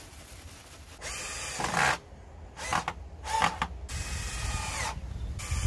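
Cordless drill motor whirring in five bursts of the trigger as it works into pallet wood: the first about a second long and loudest near its end, the rest shorter, with brief stops between them.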